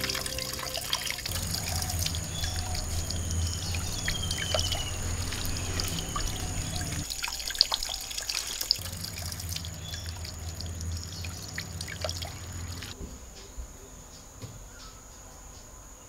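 Water trickling and dripping off wet tomatoes, with light clicks and knocks as the tomatoes are handled in woven bamboo baskets. It gets quieter near the end.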